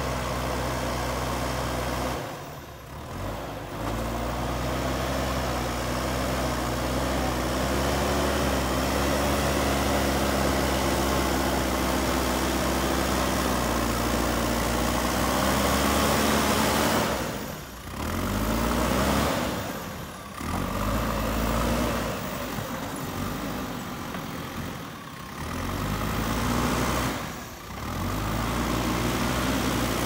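JCB 3DX Super backhoe loader's diesel engine running as the loader works soil, its revs rising and falling with the work. The sound dips away briefly about five times.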